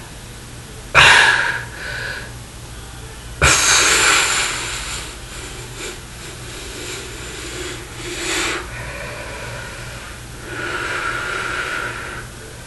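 A man's heavy, forceful breaths while he strains to flex: a sharp loud exhale about a second in, a stronger one at about three and a half seconds that fades out, and softer breaths later, over a steady low hum.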